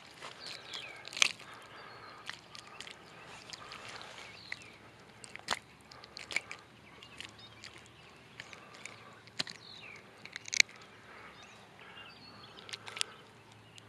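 Scattered sharp clicks and crackles from handling a small largemouth bass and its fishing line and tackle, with short, high, falling chirps in the background.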